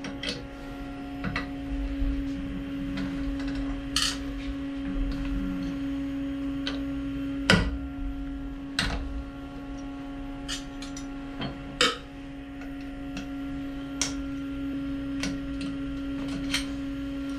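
A T-handle hex key loosening the bolts on an aluminium workholding fixture inside a CNC mill, making about ten short metallic clinks and taps, the loudest about seven and a half seconds in. A steady hum from the idling machine runs underneath.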